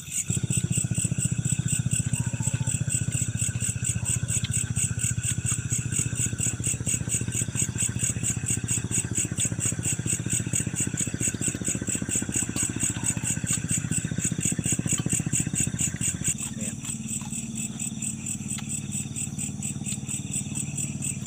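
A motor engine running steadily, starting abruptly and dropping a little lower about 16 seconds in, over a fast, even pulsing chorus of crickets.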